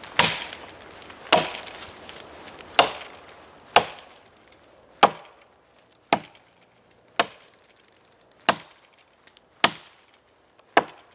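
Axe chopping into an oak log, about ten steady blows a little over a second apart, each a sharp crack of steel biting wood, cutting out the sides of a notch while bucking the log.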